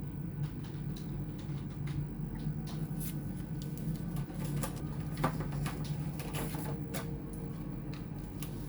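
Scattered small clicks and taps of hands and a screwdriver handling an opened laptop's parts, busiest in the middle, over a steady low hum.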